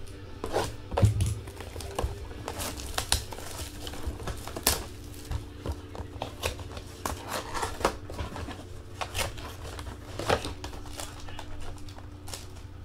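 Handling of a sealed trading-card box as it is opened: irregular crinkling of plastic wrap, with small clicks and taps of cardboard and packs being handled.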